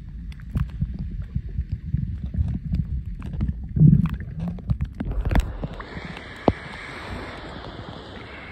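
Phone microphone under seawater: muffled low rumbling with many small clicks of moving water. About five seconds in there is a loud splash as the phone comes out of the water, and the sound opens into a light hiss of water lapping and dripping, with a few clicks.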